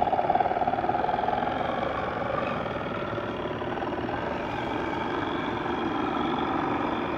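Small model steam engine of a Wilesco steam boat running steadily, with a rapid, even beat.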